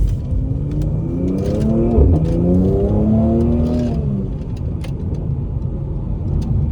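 Car engine accelerating hard: its pitch climbs, drops at a gear change about two seconds in, then climbs again before easing off near four seconds, over a steady low rumble of road noise.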